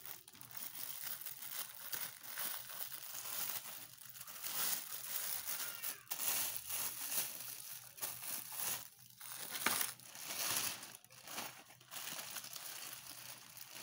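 Clear plastic packaging crinkling and rustling irregularly as kitchen utensils wrapped in it are handled and laid down.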